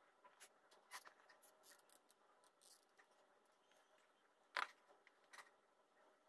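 Near silence with faint, scattered taps and clicks of hands handling flower buds and a hot glue gun on a wooden tabletop. One sharper click comes about four and a half seconds in.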